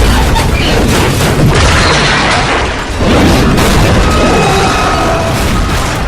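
Loud, continuous rumbling and booming noise, with a brief dip about three seconds in.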